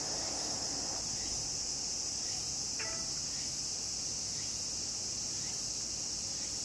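Steady, high-pitched insect chorus droning without a break, with a few faint short chirps over it around the middle.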